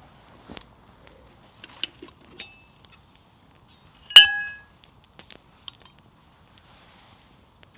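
Metal billy can clinking once sharply as its lid and wire bail handle are handled, with a short ringing tail. A few faint clicks before and after.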